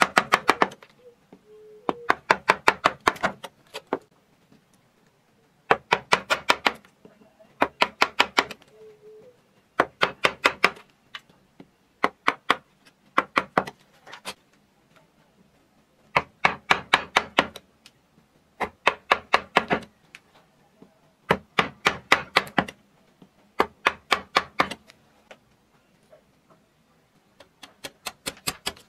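Half-round carving gouge driven into wood with a mallet, in runs of rapid light taps of about eight a second. Each run lasts a second or so, they repeat every couple of seconds, and there is a longer pause near the end.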